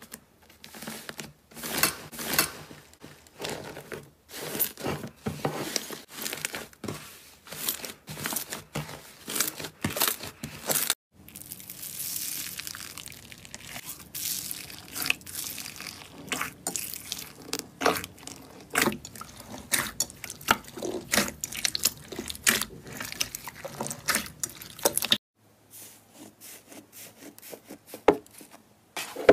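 Slime being squeezed, pressed and stretched by hand close to the microphone, giving fast irregular crackling and popping clicks. The sound changes abruptly about 11 seconds in and again near 25 seconds, where separate clips are joined.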